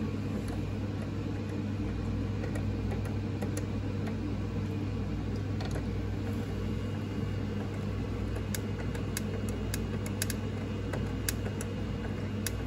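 A steady low hum carries through, with faint scattered metallic ticks from a hand screwdriver tightening the CPU liquid cooler's pump-block mounting screws. The ticks come more often in the second half.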